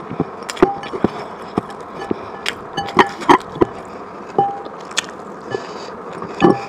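Close-miked eating: wet chewing and biting with irregular sharp clicks and crunches, and a few scrapes.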